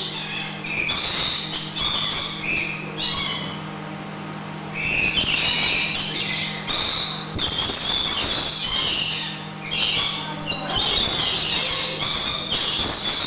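Lorikeets screeching and squawking in repeated harsh bursts, with a short quieter lull about four seconds in. A steady low hum runs underneath.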